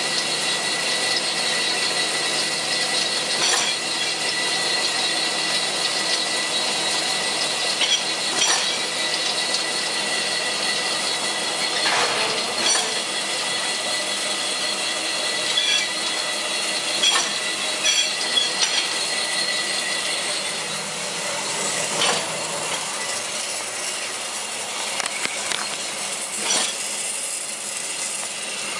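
Paper-cutting, counting and stacking machine for dough products running steadily with a high whine, its mechanism giving sharp clicks and knocks every few seconds as it cycles.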